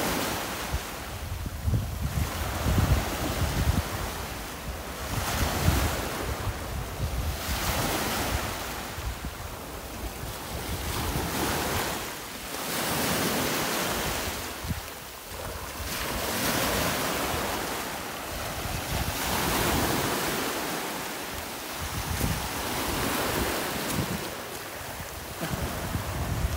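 Small sea waves washing against a rocky shore, the surf swelling and ebbing every few seconds, with wind buffeting the microphone, heaviest in the first several seconds.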